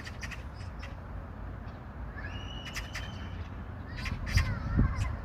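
Bird calls: one drawn-out call a little after two seconds in, then a couple of wavering calls near the end, over a steady low wind rumble.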